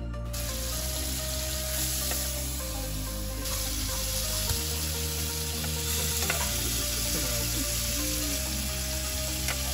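Marinated chicken pieces frying in hot oil, a steady sizzle throughout. Soft background music with held notes plays underneath.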